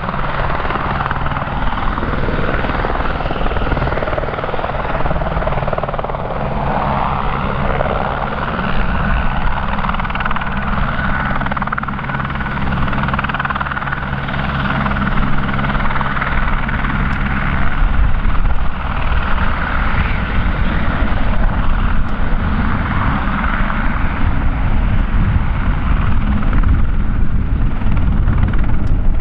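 Helicopter running steadily with an engine whine, then a low rumble. A set of steady low tones drops out about two-thirds of the way through.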